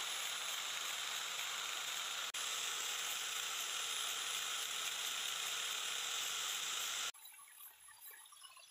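Electric angle grinder with an abrasive sanding disc shaping a wooden speargun stock: a steady, even hiss of abrasive on wood. It breaks for an instant about two seconds in and cuts off abruptly about seven seconds in.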